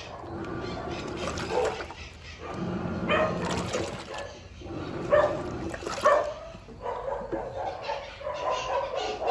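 Sayko washing machine agitating a full load of bedding in high water: sloshing and churning in surges every couple of seconds as the agitator swings back and forth, with a squealing, whining note on each stroke.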